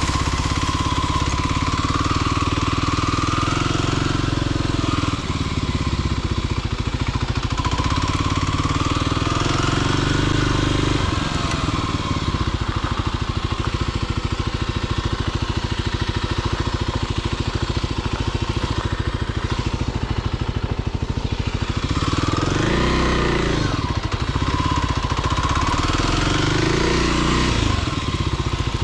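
Motorcycle engine running while riding off-road, its revs rising and falling several times as the throttle is opened and closed.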